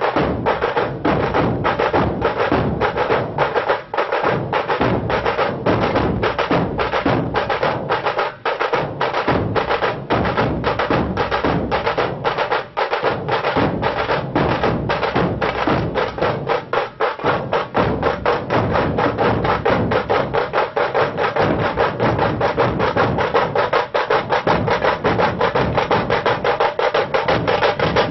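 A large dhol-tasha troupe drumming: many barrel dhols beaten with sticks together with tashas, in a fast, driving, repeating rhythm. The strokes come closer together in the second half as the beat quickens.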